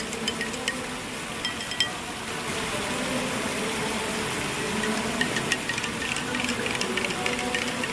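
Teaspoon stirring washing-powder solution in a glass, clinking against the sides again and again, with a quieter stretch of stirring in the middle.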